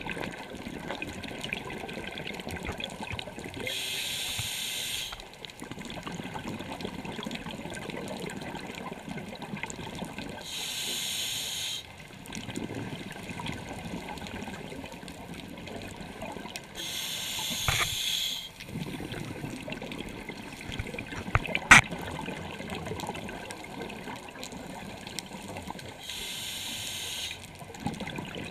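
Scuba diver breathing through a regulator underwater: four hissing inhalations about six and a half seconds apart, with bubbly rumbling from the exhaled air between them. A sharp click or knock is the loudest sound, about two-thirds of the way through.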